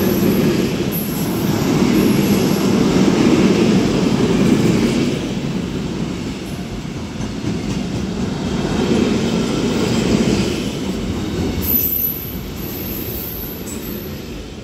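Freight train of grain hopper wagons rolling past, a steady wheel-on-rail rumble with thin, high wheel squeals now and then. The rumble eases and fades after about twelve seconds as the last wagons go by.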